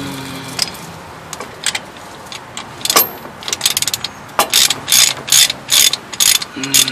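Hand ratchet with a 13 mm socket clicking as it loosens a tight starter-motor mounting bolt. There are a few single clicks at first, then repeated quick runs of clicks in the second half.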